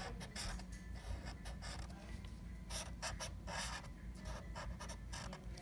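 Sharpie permanent marker drawing on paper in a run of short, irregular strokes.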